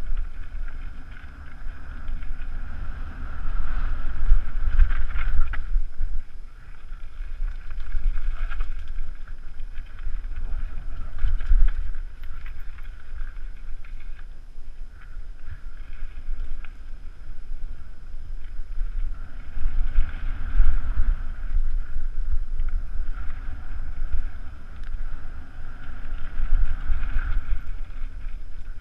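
Wind buffeting a helmet camera's microphone while a mountain bike rides fast down a rough dirt trail, a heavy rumble with rattle from the bike and ground, rising and easing as the speed changes.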